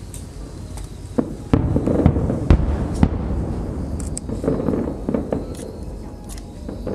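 Aerial fireworks shells bursting: a run of loud booms in the first few seconds, then clusters of crackling bursts with a low rumbling echo underneath.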